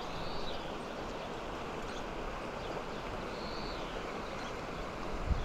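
Shallow river channel flowing steadily over a rocky bed, a continuous even rush of water, with a soft low thump near the end.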